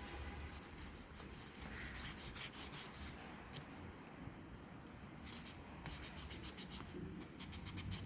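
A cloth rubbed over a hard surface in quick wiping strokes, in two runs with a short pause between them.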